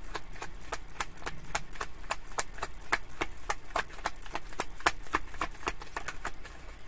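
A deck of tarot cards being shuffled by hand: a quick, irregular run of card snaps and flicks, several a second.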